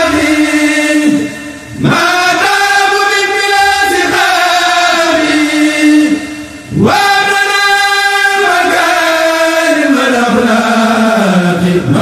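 A group of men chanting a Mouride khassida, drawing out long melismatic notes with two short breaks for breath; the melody steps down in pitch near the end.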